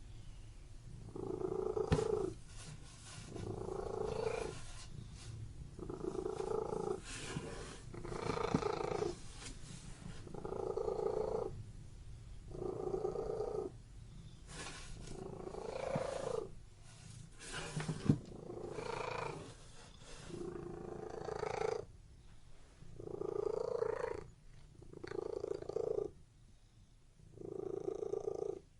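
Domestic cat purring in a steady rhythm of swells, about one every two seconds, with softer phases between them. There is a brief sharp click about eighteen seconds in.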